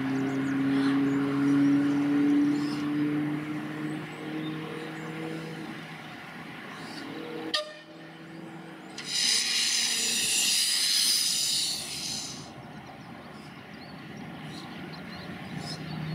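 Steam hissing loudly from a small Bagnall saddle-tank steam locomotive for about three seconds in the middle, after a sharp click. Before it, a low steady hum rises slightly in pitch and fades.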